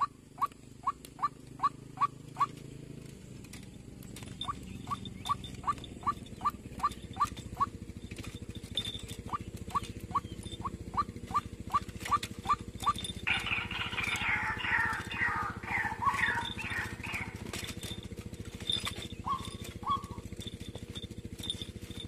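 White-breasted waterhen calling: runs of short, evenly repeated notes, about three a second, broken by brief pauses, then a louder, tangled burst of croaking calls past the middle, and two last notes near the end.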